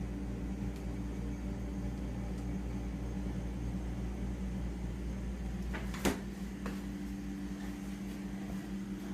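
A steady low mechanical hum with several even tones, like a running motor, and a sharp click about six seconds in.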